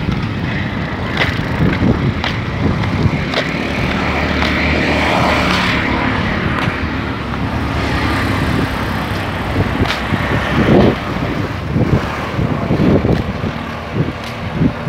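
A motor vehicle's engine running steadily with road noise, heard from on board while moving, with scattered sharp knocks and rattles.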